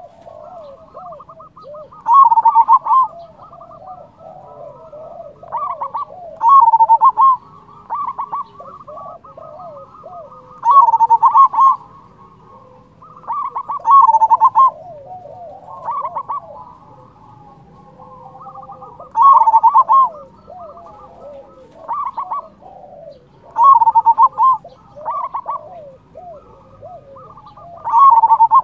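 Zebra dove (perkutut) singing: a loud cooing phrase of quick, clipped notes every few seconds, with softer rolling coos in between.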